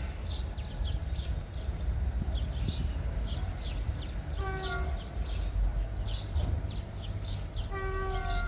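Horn of the approaching locomotive E 1403 sounding twice, a short blast about four and a half seconds in and a longer one starting near the end, over birds chirping repeatedly and a steady low rumble.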